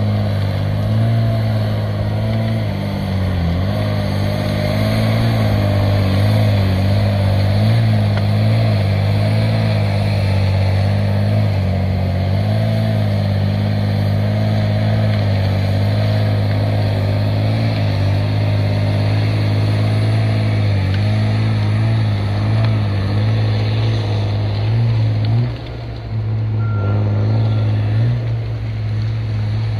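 Tigercat 635D six-wheel grapple skidder's diesel engine running steadily under load while it drags a bundle of tree-length logs. A faint wavering whine rides above the engine note, which dips briefly near the end.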